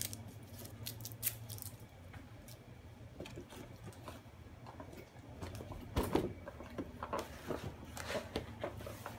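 Scattered light clicks, taps and rustles of a newly opened gift and its packaging being handled, with a louder knock about six seconds in.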